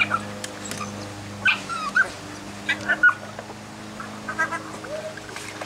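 Jack Russell terrier giving short, high whines and yips, several times over a few seconds, with bending pitch.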